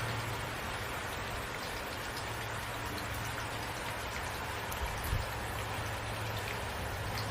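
Steady rain falling, an even hiss with scattered drops pattering, under a low steady rumble, with a brief soft low thump about five seconds in.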